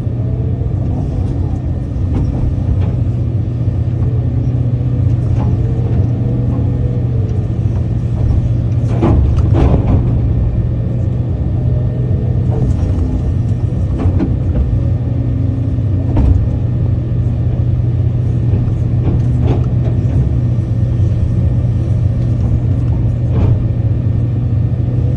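Excavator diesel engine running steadily under working load, with a handful of short knocks, the loudest about nine seconds in.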